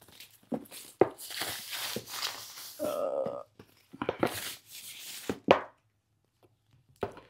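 A handbag and its detachable strap being handled: rustling with sharp clicks of the strap's metal clip hardware as it is fitted, and a brief hum about three seconds in.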